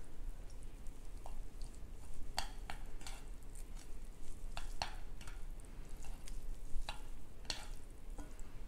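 Chopsticks stirring and tossing sauce-coated spicy instant noodles on a plate: soft wet sounds of the noodles with a dozen or so irregular light clicks.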